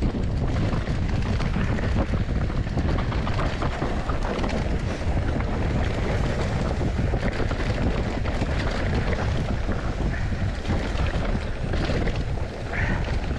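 Mountain bike ride recorded on a bike-mounted camera: wind buffeting the microphone, steady tyre noise on the trail and a constant patter of small knocks and rattles from the bike over rough ground.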